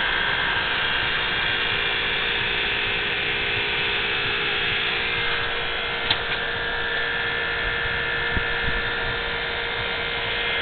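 Steady electrical whine with several fixed tones, from a small electric device; a faint click about six seconds in.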